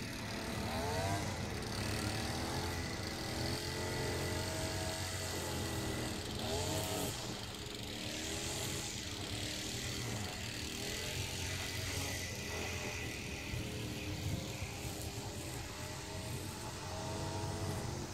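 String trimmer engine running, revving up and down over and over as the line cuts.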